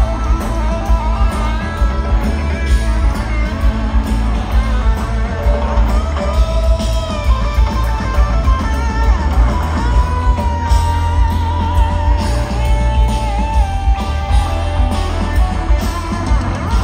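Live rock band playing, recorded from the crowd: an electric guitar lead over bass and drums, settling about halfway through into long held notes with a wavering vibrato.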